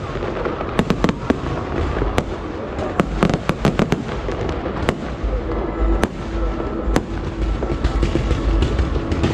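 Aerial fireworks bursting in quick succession, with sharp bangs and crackles in clusters over a continuous low rumble of distant explosions.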